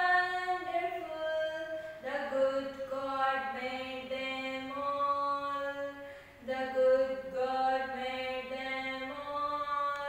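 A woman singing a prayer solo and unaccompanied, in long held notes, with two short pauses for breath.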